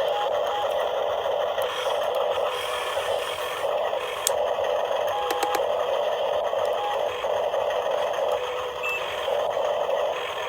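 Small electric gear motors of a 7.2 V RC mini excavator running, with short whines that start and stop as different motors switch on, and a few sharp clicks.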